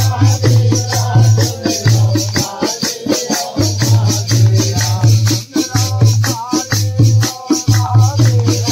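Live phag folk music: men's voices singing over a dholak, whose deep hand strokes repeat in a steady pattern, with jingling metal hand percussion keeping a fast even beat of about four to five strokes a second.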